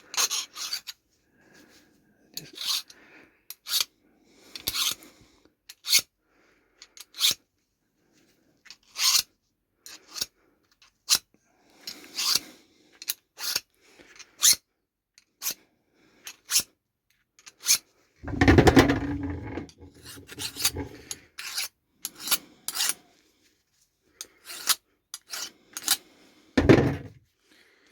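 A chainsaw file rasping against the steel of a wood drill bit in short, irregular hand strokes, sharpening and cleaning out the bit's groove. There are louder bumps of handling about two-thirds of the way through and near the end.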